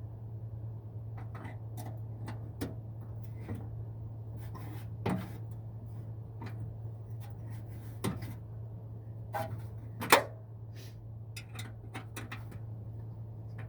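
Wrench and nut clinking and clicking irregularly on a bolt as it is tightened by hand, with one sharper metal knock about ten seconds in. A steady low hum runs underneath.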